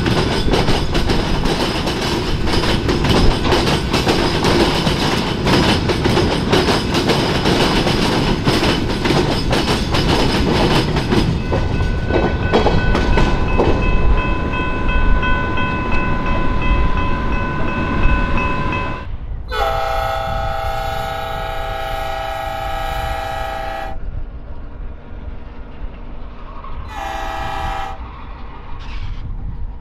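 Freight train of covered hopper cars rolling past, wheels clicking steadily over the rail joints. About 19 s in, a diesel locomotive horn sounds one long blast, followed near the end by shorter blasts.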